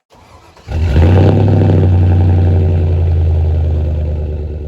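5.3L V8 truck engine heard through a single-chamber performance muffler, coming in suddenly about a second in and holding a loud, steady low exhaust note.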